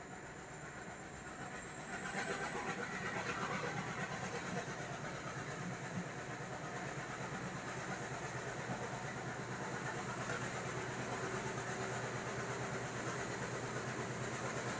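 Diesel-hauled passenger train running on the line, a steady rumble of the train in motion. About two seconds in it grows louder and a thin high whine begins, rising slowly in pitch.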